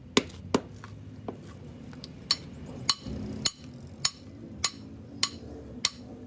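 Repeated sharp hammer taps on metal. A few come irregularly at first, then from about two seconds in they settle into a steady beat of roughly one every 0.6 seconds.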